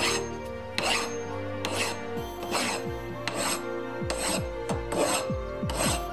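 Hand file rasping across a cast bronze (copper–tin) tooth in even strokes a little under a second apart, over background music.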